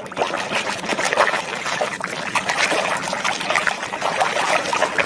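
Water trickling and splashing, with small knocks, as a muddy plastic toy animal is washed clean by hand.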